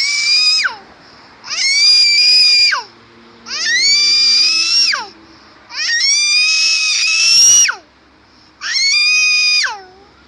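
A young child screaming, a run of five long high-pitched shrieks about one every two seconds, each ending in a falling drop in pitch.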